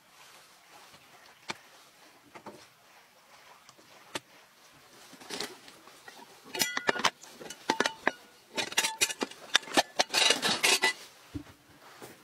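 A few isolated light taps and clicks, then from about five seconds in a busy run of clicks, knocks and rattling as hard objects are handled and moved about in a rattan basket.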